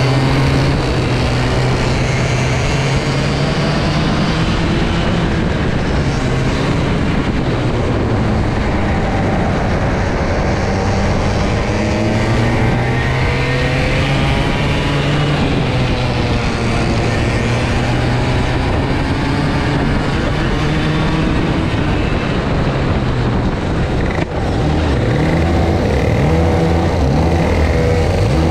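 Racing kart engine at race pace, heard close from on board, its pitch rising and falling as the kart accelerates and slows through the corners. Other karts run close ahead.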